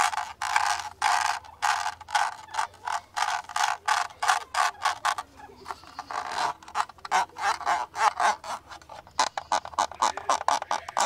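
A camera being worked close to the microphone: a run of short clicks and scratchy strokes, several a second, coming in a quicker flurry near the end.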